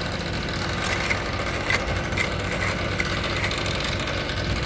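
An engine idling steadily, with a few short scraping strokes of a tool against the timber formwork boxing as wet concrete is cleaned off its edge.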